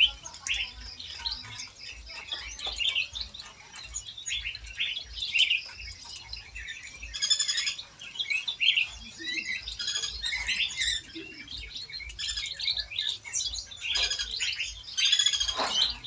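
A flock of small aviary birds chirping continuously, many short high calls overlapping. Near the end one louder call falls steeply in pitch.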